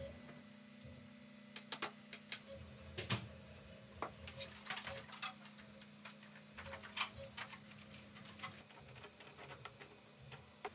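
Light clicks and taps of small 3D-printed plastic parts being handled on a workbench, irregular and sparse, over a faint steady hum that stops near the end.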